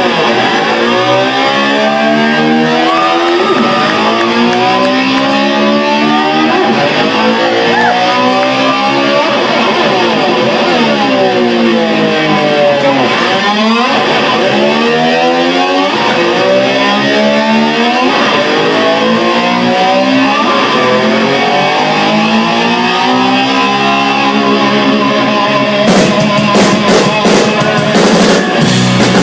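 Electric slide guitar swooping up and down in pitch again and again, imitating a motorcycle engine revving. Sharp drum hits come in near the end.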